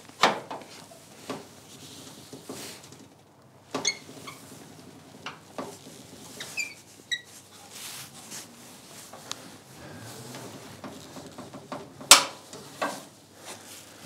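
Log lifter on a Logosol F2+ chainsaw mill being cranked by hand to lower it, giving scattered metallic clicks and knocks with a few short squeaks. One sharper knock comes near the end.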